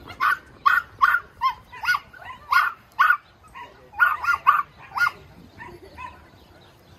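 Dogs barking at each other through a chain-link fence: a rapid run of about a dozen short, sharp barks, two or three a second, that dies away in the last second or so.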